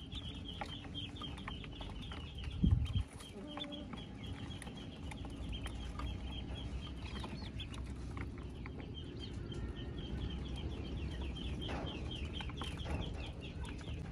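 A brood of Pekin ducklings peeping nonstop, a rapid chorus of short, high, downward-sliding peeps, with a low bump about three seconds in.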